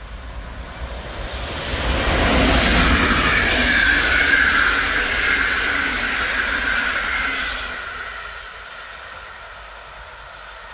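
PKP Intercity locomotive-hauled passenger train passing at speed. The wheel-on-rail noise swells about two seconds in, holds with a steady high whine as the coaches go by, then fades as the train draws away.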